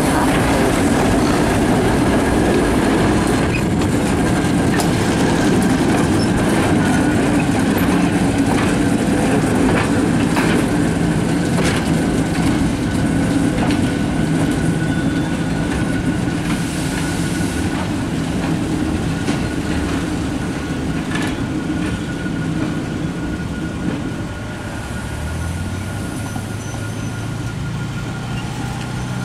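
Alco RS-1 diesel-electric locomotive and its train rolling past, the engine running and the wheels clicking over rail joints, with a thin steady high whine; the sound slowly fades as the train moves away. Near the end a road vehicle's engine hum comes in.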